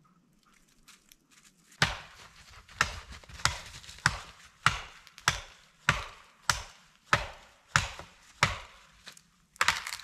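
Axe chopping wood: about a dozen sharp, evenly paced strikes, roughly one every two-thirds of a second, starting about two seconds in.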